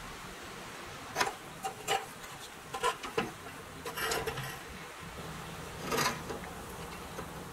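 Rusty pressed-steel Tonka toy pickup being handled on a wooden bench: its metal body, wheels and axles give a scattering of light knocks, clicks and scrapes at irregular moments, with a busier patch about four seconds in and a louder knock around six seconds in.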